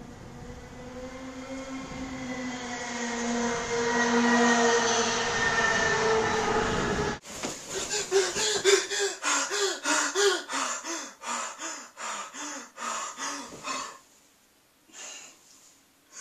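A train-like roar with steady ringing tones builds for about seven seconds and cuts off abruptly. Then a man pants and gasps rapidly, about two breaths a second, as he jolts awake from a nightmare in bed.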